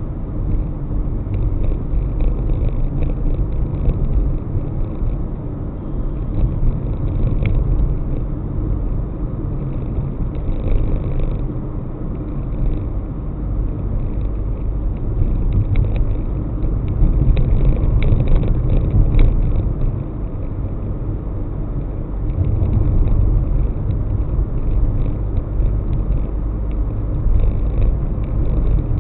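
Car being driven on city roads: a steady low engine and road rumble that swells and eases gently, with a few faint ticks now and then.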